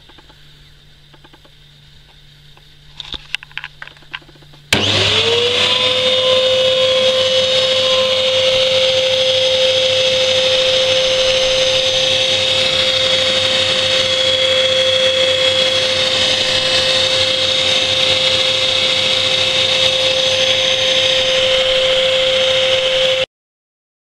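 Hoover PurePower upright vacuum cleaner switched on after a few clicks: its motor spins up within half a second to a steady high whine and runs evenly, then the sound stops abruptly near the end.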